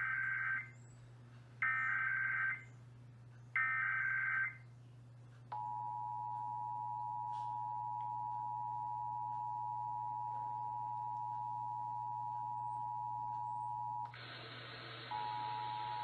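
Emergency Alert System broadcast tones: three short, shrill bursts of SAME digital header data about two seconds apart, then the steady two-pitch EAS attention signal (853 and 960 Hz) that announces the alert. About 14 s in, hiss takes over and the tone drops out for about a second, then the tone comes back with the hiss beneath it.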